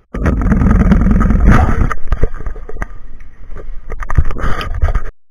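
Loud handling noise from a small camera being picked up from the table: rumbling and scraping against its microphone, with repeated knocks. It cuts off suddenly as the recording stops.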